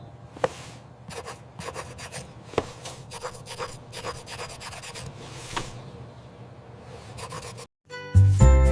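Many short, irregular rubbing and scratching strokes with light clicks, like something being rubbed or scraped on a surface. A brief gap follows, then music starts near the end.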